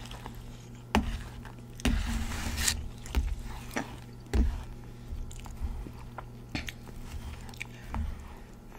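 Close-miked eating: chewing and mouth sounds, with a metal spoon clicking and scraping on a paper plate of rice and curry at irregular moments. A steady low hum runs underneath.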